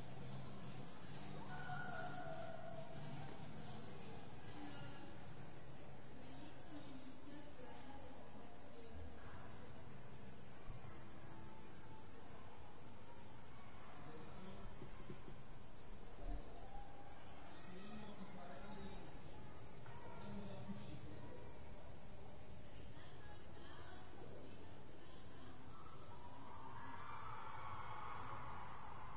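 Crickets chirping in a steady, high-pitched chorus of rapid pulses. Faint, indistinct sounds lie underneath and grow a little stronger near the end.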